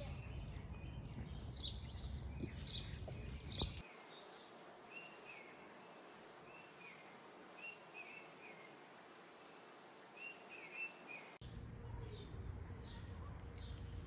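Small backyard birds chirping, a string of short high calls repeated throughout. A low steady background rumble drops away about four seconds in and returns near the end.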